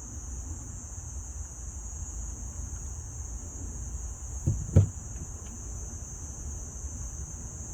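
Two dull knocks about halfway through, as the broken side mirror of a 1996 GMC Yukon is worked loose from the door. Steady high-pitched insect chirring runs underneath.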